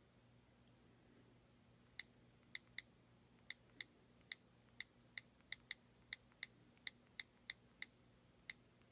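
iPhone on-screen keyboard key clicks as a short message is typed: about eighteen short, sharp ticks at an uneven two to three a second, starting about two seconds in, over a faint low hum.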